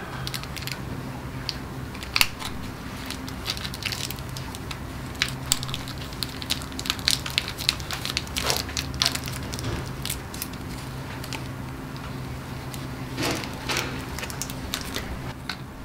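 Sterile peel-pack wrapper of a syringe cap crinkling and crackling as gloved hands open it and handle the cap, with many small sharp clicks and rustles. A steady low hum runs underneath.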